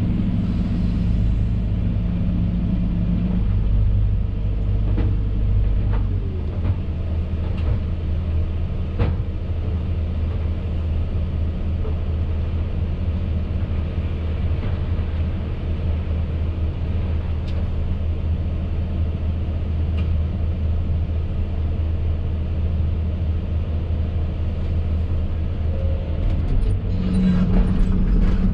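Hidromek 220 excavator's diesel engine running steadily, heard from inside the cab, its note changing about six seconds in. A few light knocks sound over it.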